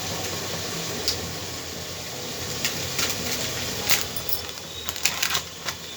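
Potato and pea curry frying in the pressure cooker, a steady sizzle, with a few short light clicks scattered through.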